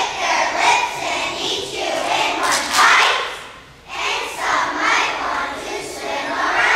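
A group of young children singing together with no clear accompaniment, breaking off briefly a little past halfway.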